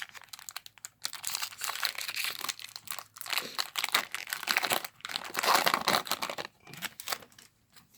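Foil wrapper of a Pokémon TCG booster pack crinkling and tearing as it is opened and the cards are pulled out, in irregular bursts of crackle that stop about a second before the end.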